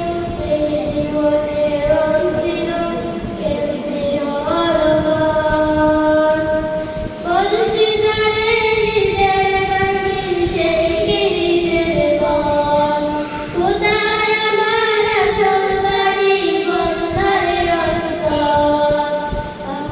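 A young girl singing an Islamic song solo, in long held notes that slide between pitches, with short breaks for breath between phrases.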